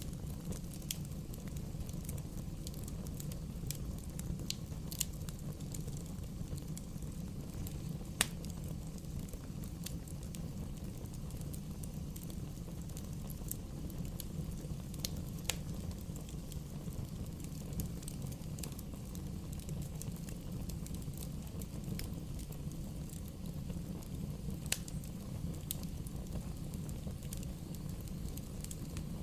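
Bonfire burning steadily with a low rumble and constant small crackling, broken by a few sharper pops about 8, 15 and 25 seconds in.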